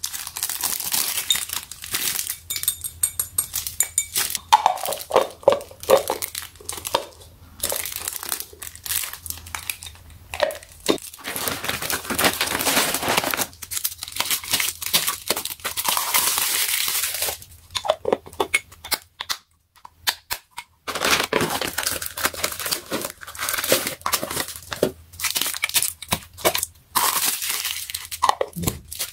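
Plastic wrapping and a woven plastic shopping bag crinkling and rustling as glass food containers with snap-lock lids are unwrapped and handled, with frequent short clicks. It stops briefly about two-thirds of the way through.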